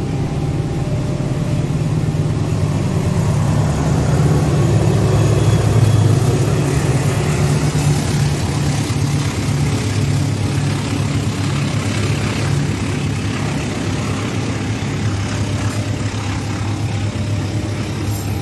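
A diesel-hauled long-distance passenger train passing close by. The locomotive's engine drone swells to its loudest about five or six seconds in, then gives way to the coaches rolling past with a regular pulsing rumble.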